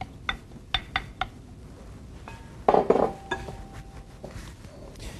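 Glass mixing bowls clinking as a spoon knocks and scrapes against them: several sharp clinks, then a louder clatter about halfway through, with the glass ringing on briefly after it.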